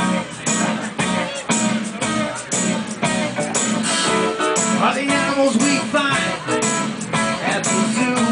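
Live guitar music: a guitar strummed in a steady rhythm, amplified through a PA speaker.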